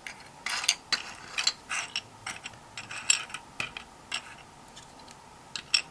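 Loose plastic keycaps clicking and clattering against each other as they are picked through by hand, in irregular bursts: busiest in the first few seconds, then a quieter spell and a couple of sharp clicks near the end.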